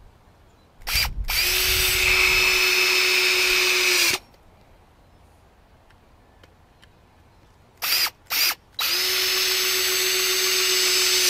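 Power drill driving screws into a wooden deck plank: a short trigger blip, then a steady run of about three seconds that stops abruptly. About eight seconds in a second screw goes in the same way, two quick blips and then a steady run.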